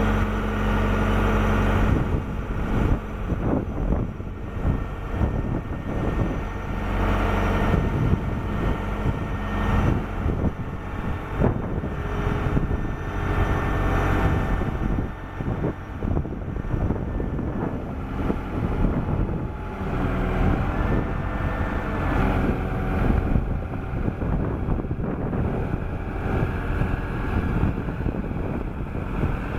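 1999 SkyTrak 10054 telehandler's diesel engine running and working, its pitch shifting about two seconds in, with irregular knocks and rattles throughout.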